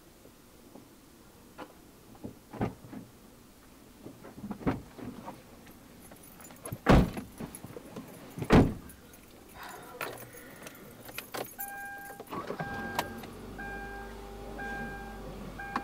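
Car doors opening with small knocks, then two heavy door slams about a second and a half apart. Keys jangle, then the car's warning chime sounds about once a second as the ignition is switched on.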